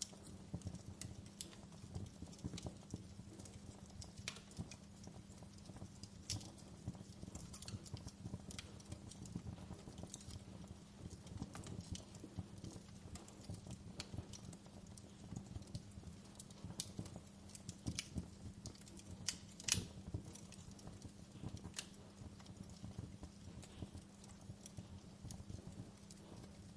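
Fireplace fire crackling, with irregular sharp pops and snaps over a low steady hum; one louder pop about twenty seconds in.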